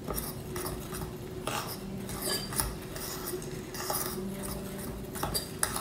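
A metal fork stirring dry flour and oat mix in a mixing bowl, with irregular scrapes and clinks of the fork against the bowl. A faint steady hum runs underneath.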